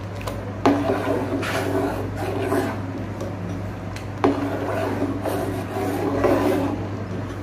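Steel ladle stirring and scraping through milk in an aluminium pot, with two sharp knocks of the ladle against the pot, one just under a second in and one about four seconds in. A steady low hum runs underneath.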